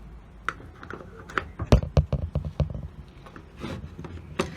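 A quick run of sharp clicks and knocks, with one more near the end: a soldering iron being handled, its mains plug pushed into a socket and the iron set down.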